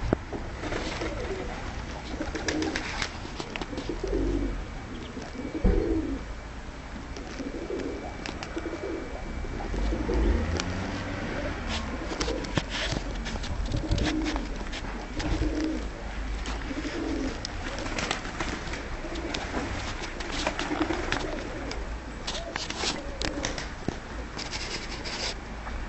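Turkish dönek (tumbler) pigeons cooing over and over, the low coos overlapping, with scattered short clicks and scuffs.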